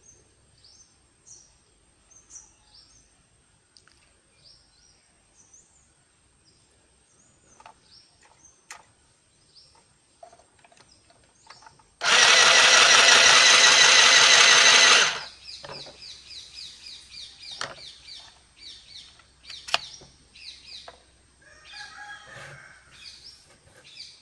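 Mini electric sewing machine's small motor running for about three seconds, starting and stopping abruptly, as the foot pedal is pressed to wind thread onto a bobbin. Small birds chirp faintly before and after.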